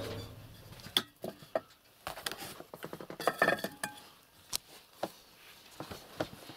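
Feeding bowls being gathered up by hand: irregular clinks and knocks of dishes being handled.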